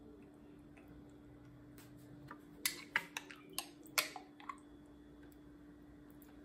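A handful of light clinks and taps of crockery and a spoon being handled, clustered in the middle, over a faint steady hum.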